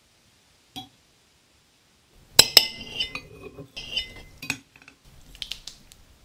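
Metal fork and knife clinking and scraping on a ceramic plate as they cut through a soft, gelatinous food. There are two sharp clinks about two and a half seconds in, then a couple of seconds of busy scraping with a light ring, and a few softer sounds near the end.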